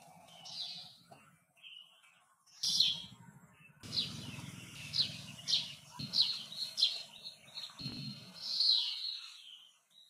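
Weaver bird singing: a run of quick, high chirps that sweep downward, with wheezy notes, busiest from about four seconds in. A low rumble sits underneath.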